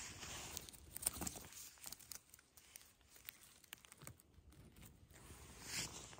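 Scissors snipping small mushroom stems amid rustling dry grass and forest litter: a few faint clicks and snips, with a louder rustle near the end.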